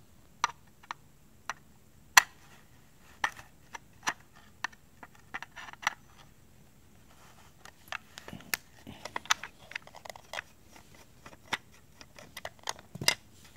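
Irregular small clicks and taps from hands handling the parts of a Daisy Powerline 340 BB pistol and its small metal screws. The sharpest click comes about two seconds in, and the clicks come thicker in the second half.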